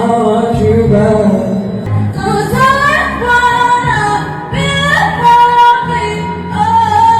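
A voice singing a pop melody over a backing track, through an inexpensive classroom microphone, with pitch glides and long held notes.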